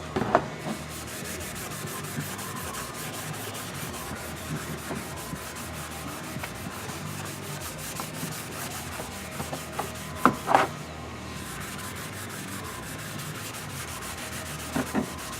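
Rapid, steady scrubbing strokes on the oxidized plastic front fender of a dirt bike, working the remaining chalky spots out of the surface, with a couple of brief louder knocks about ten seconds in.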